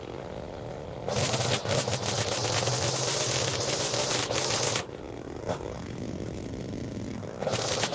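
Lawn mower engine running steadily, with dense crackling and scraping over it. It gets louder from about a second in until near the middle, drops back, then rises again near the end.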